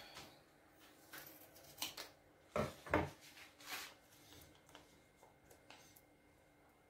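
A handful of light knocks and clicks from kitchen utensils and containers being handled, the two loudest close together about two and a half and three seconds in.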